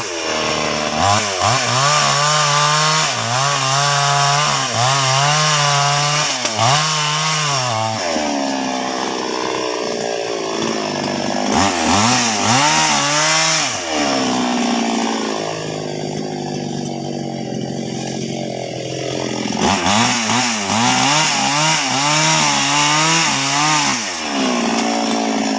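Petrol chainsaw cutting albasia (sengon) wood, its engine pitch dipping and climbing back again and again as the chain bogs in the cut and frees. About two-thirds through it runs lower and quieter for a few seconds before the dips resume.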